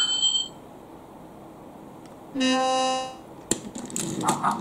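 A short, steady, buzzy horn-like toot lasting under a second about halfway through, followed by a sharp click. A bright electronic chime-like tone sounds at the very start, and choppy mid-pitched bursts follow near the end.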